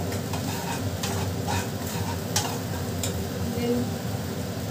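Masala paste sizzling as it fries in a pan while a spatula stirs it, with a few sharp taps and scrapes of the spatula against the pan. The paste is being fried until its raw smell cooks off.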